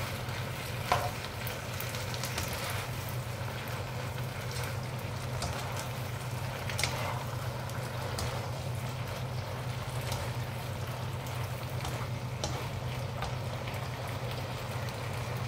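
Water spinach and tomato sizzling in a hot wok as they are tossed and stirred, with a few sharp clacks of the utensils against the pan, the loudest about a second in. A steady low hum runs underneath.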